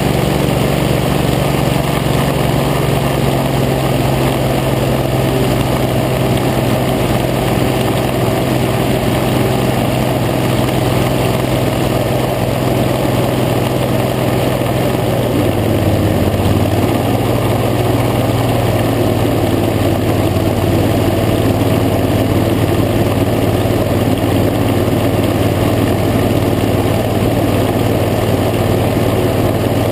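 A small craft's engine runs loud and steady at cruising speed over water, with wind and spray noise. Its note shifts a little about halfway through.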